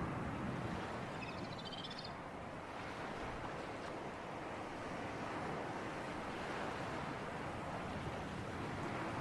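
Steady rushing of sea breeze and surf at the shore, swelling and easing gently, with a brief high bird chirping about one and a half to two seconds in.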